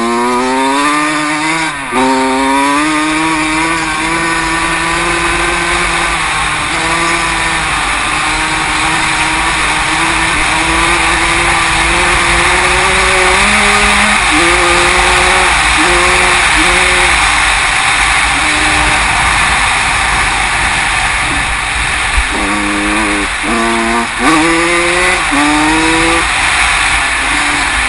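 Motocross bike engine at full throttle, climbing steeply in pitch twice in the first few seconds as it shifts up through the gears, then held at steady high revs. In the last third the throttle is cut and reopened several times in quick succession, the pitch dropping and rising each time. Heavy wind noise on the microphone throughout.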